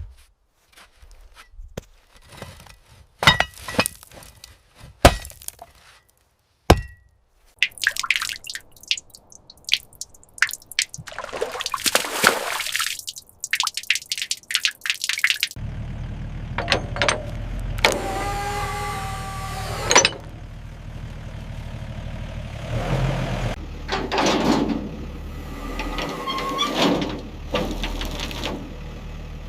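A run of workshop restoration sounds: scattered sharp knocks and clicks, then repeated hissing, scraping sweeps, then a steady low hum under which a pitched tool whine rises about halfway through and further scraping follows.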